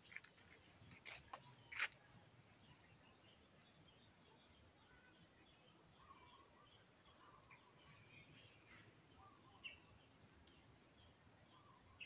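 A faint, steady, high-pitched drone of insects, with scattered short bird chirps over it. A few brief clicks come in the first couple of seconds.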